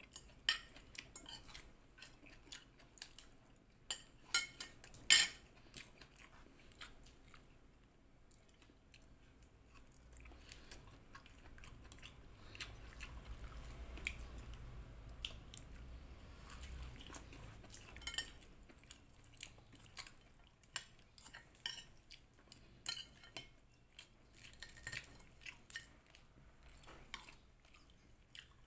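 Metal fork and spoon clinking and scraping on a ceramic plate as food is picked apart and scooped up, with chewing between the clinks. The sharpest clinks come about four to five seconds in, and there is a stretch of low rumble in the middle.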